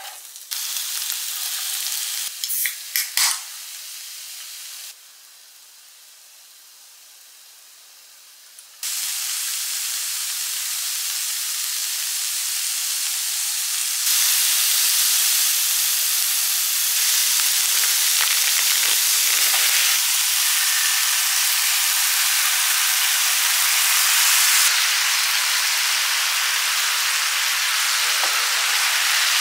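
Sliced vegetables sizzling in hot oil on a VOBON electric grill pan, a steady frying hiss. A few sharp clicks come about three seconds in; the sizzle is quieter for a few seconds, then comes back louder and gets louder again about halfway through, staying strong.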